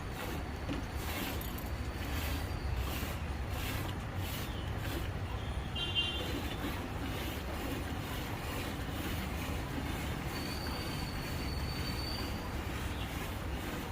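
Hand milking of a Jersey cow: milk streams squirting into a metal pail in a rhythmic series of hissing strokes, over a steady low rumble.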